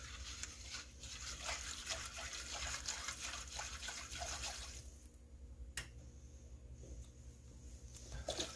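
A whisk stirring milk into a butter-and-flour roux in a nonstick saucepan, a quick run of soft swishing and scraping strokes. The stirring stops after about four and a half seconds, and a single sharp click follows about a second later.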